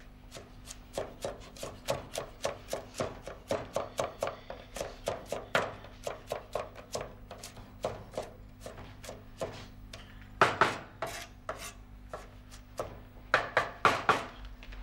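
Kitchen knife chopping onion on a wooden chopping board: a quick, steady run of sharp strikes, about three a second, with a few louder chops about two-thirds of the way through and near the end.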